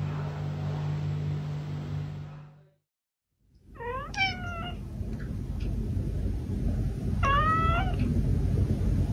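A steady low hum that stops short, then a domestic cat meowing twice, about three seconds apart. Each meow is short, rising and then dropping a little in pitch.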